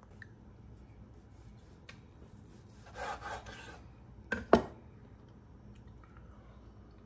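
Kitchen knife cutting through a cooked brisket flat on a bamboo cutting board: a short cutting stroke about three seconds in, then a sharp knock about a second later.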